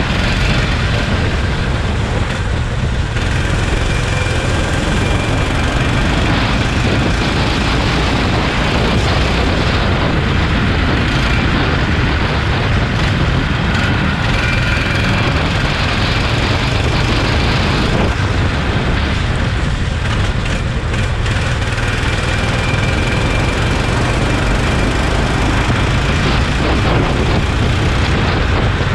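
Go-kart engine running at speed, heard from the driver's seat and mixed with rushing wind noise on the microphone.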